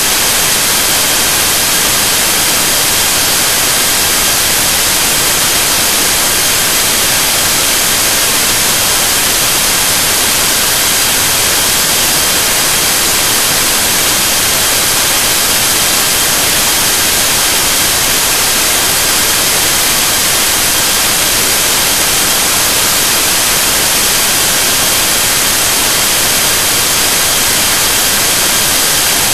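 Steady, loud static hiss with faint, high steady whine tones over it, unchanging throughout, with no other event.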